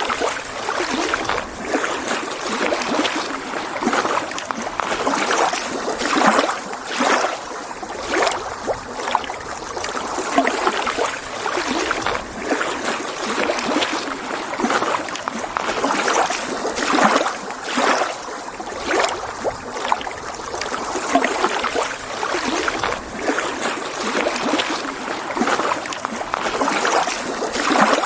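Small lake waves lapping and splashing against the shore in quick, irregular surges.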